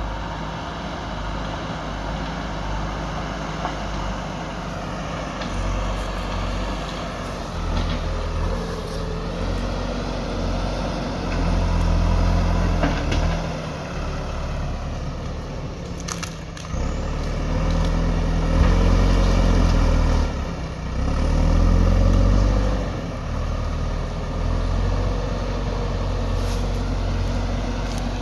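JCB 3DX backhoe loader's diesel engine running, rising under hydraulic load several times as it works, with a sharp knock about sixteen seconds in.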